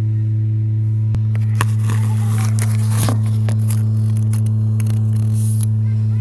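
A loud, steady low hum, with a run of scraping and clicking noises from about a second and a half in until near the end.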